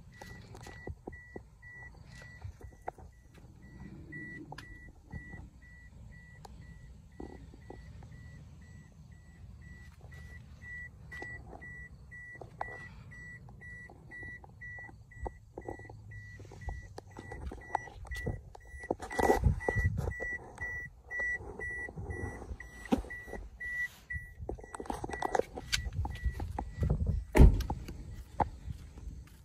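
A car's door-open warning chime beeping in an even, rapid series while a door stands open, with a few knocks and rustles among the beeps. Near the end a car door shuts with a loud thud and the chime stops.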